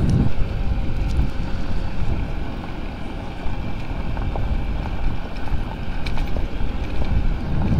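Honda Ruckus scooter's small four-stroke engine running while riding over a gravel road, with heavy wind rumble on the microphone and tyre noise from the loose gravel.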